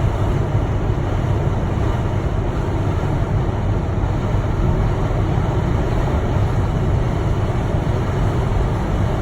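Blizzard wind, a loud, steady, low rushing noise with no breaks.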